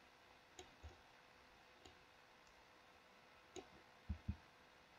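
Near silence with about four faint, scattered clicks of computer controls, and two soft low thumps in quick succession near the end.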